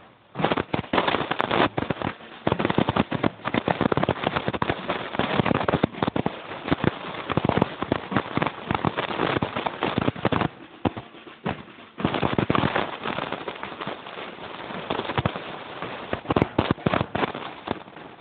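A string of firecrackers going off in rapid, irregular crackling pops. They die down briefly about ten seconds in, then crackle hard again from about twelve seconds.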